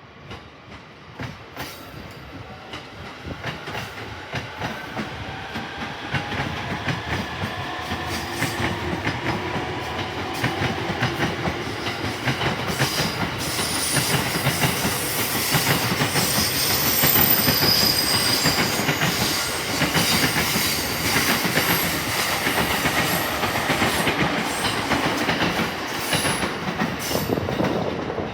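Electric train running on the tracks beside the platform, getting steadily louder, with wheels clacking over rail joints and a motor whine gliding in pitch. A brief high-pitched wheel squeal comes around the middle.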